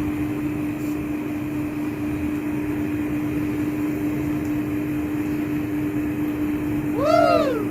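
Steady background hum with one constant tone. About seven seconds in, a cat gives a single meow that rises and then falls in pitch.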